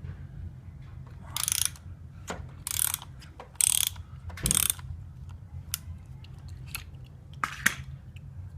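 Hand ratchet clicking in five short bursts as it works a filter wrench on the oil filter, loosening the filter to take it off.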